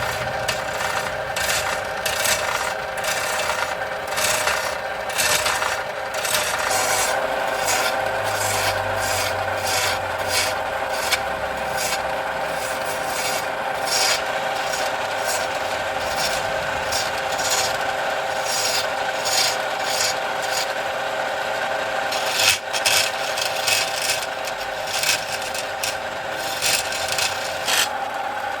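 A power tool running steadily while metal or wood is rasped against it, with a continuous scraping grind and irregular sharper scrapes.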